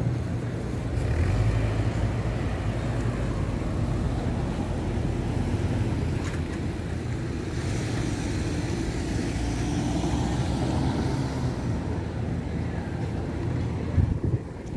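Street traffic: a steady, low engine hum from motor vehicles, with a single knock near the end.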